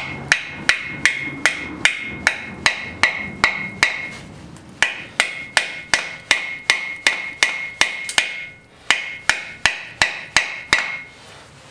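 A hammer striking metal at a freeze plug (core plug) in a Chevrolet 396 big-block engine block, in quick, even blows about three a second, each with a metallic ring. The blows come in three runs with two short pauses between them.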